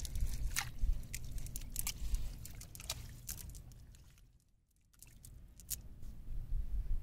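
Hands working through a wet cast net on sand: the mesh and sand crackling and squishing, with scattered sharp clicks over a low rumble. The sound cuts out briefly a little past halfway, then resumes.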